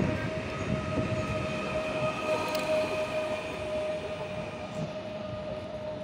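Newag Elf (27WE) electric multiple unit running past close by and moving off along the platform: a low rail rumble, loudest at first, under a steady electric whine.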